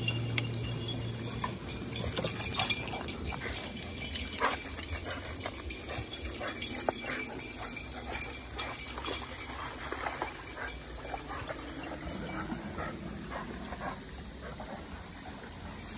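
Dogs playing in and around a shallow creek: scattered short knocks and steps as they run and scramble on the trail and stones, with insects chirring steadily behind.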